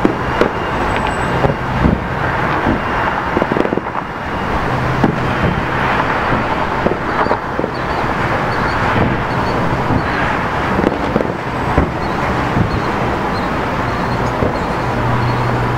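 Steady outdoor traffic noise with a low engine hum that comes and goes, cut through by scattered sharp bangs of fireworks bursting at a distance.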